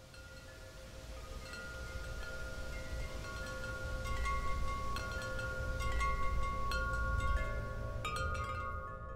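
Tubular wind chime ringing, its tubes struck every second or two and leaving several overlapping tones that hang on. It fades in from silence and grows louder over the first few seconds, over a low rumble.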